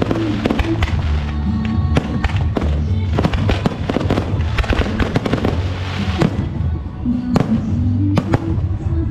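Fireworks going off in rapid, dense bangs and crackles that thin out toward the end, with a couple of single loud bangs, over steady background music.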